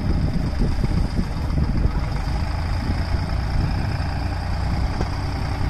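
Escort 355 tractor's diesel engine running steadily at idle while its tipper trolley is raised to unload soil.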